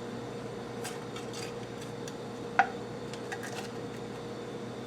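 A spatula scraping and tapping against a plate as it is worked under the eggs to flip them: a few light scrapes and one sharper click about two and a half seconds in, over a faint steady hum.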